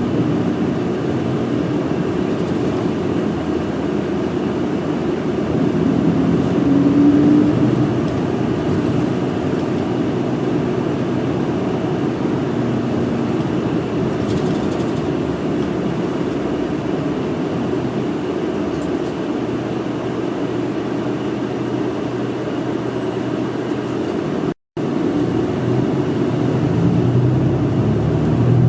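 Steady engine and road noise inside the cabin of a moving city bus, the engine note rising slightly about six seconds in. The sound drops out for an instant near the end.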